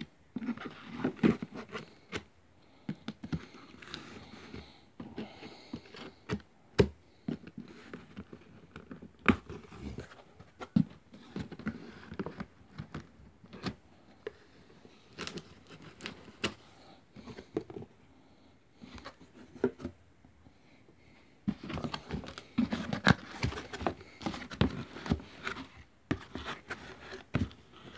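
Cardboard box being opened by hand: a utility knife scrapes and clicks as it slits the packing tape, with irregular knocks and scrapes. A denser stretch of cardboard and plastic rustling begins a little past the middle as the flaps are pulled open.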